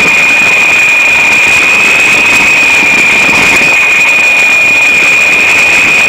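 Indoor electric RC helicopter's motor whining loudly at a steady, high, almost unchanging pitch.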